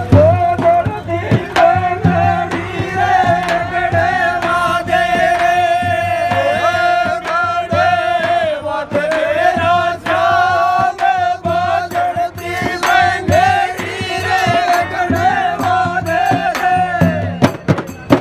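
Rajasthani Holi dhamal: a folk song sung over the steady hand-struck beat of chang frame drums. The singing stops near the end, leaving the drums.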